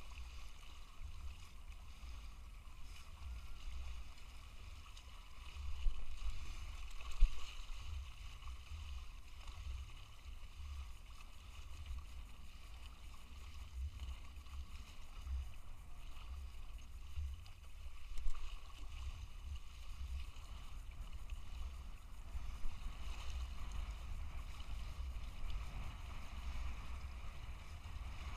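Wind buffeting the microphone, a low fluttering rumble that comes and goes, over faint water sounds. There are a few louder bumps about six, seven and eighteen seconds in.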